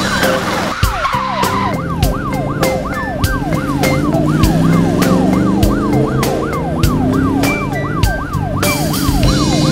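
A cartoon siren sound effect, a falling wail repeating fast, about three times a second, over background music with a steady beat.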